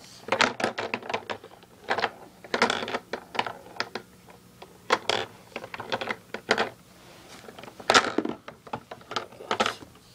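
Mini pool table balls and cue clicking and clacking: several quick runs of sharp knocks as the balls are struck and hit each other and the cushions, the loudest about eight seconds in.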